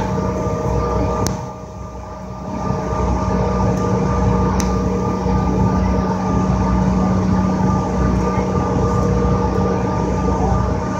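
Cabin noise of a CRJ700 regional jet taxiing: the steady hum and whine of its engines over a low rumble, dipping briefly in level about two seconds in.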